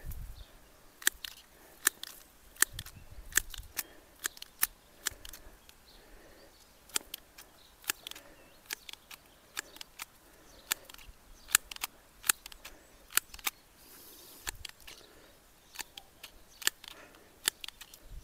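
Secateurs snipping through heather stems: a long series of sharp, irregularly spaced snips.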